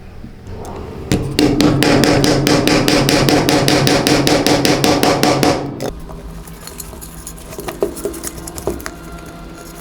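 A fast, even run of sharp mechanical knocks, about eight a second, over a steady hum, starting about a second in and stopping after about four and a half seconds, followed by scattered light clicks.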